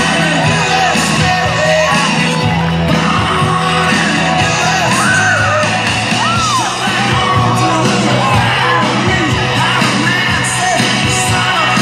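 Loud rock music with sung vocals, with a crowd yelling and cheering over it.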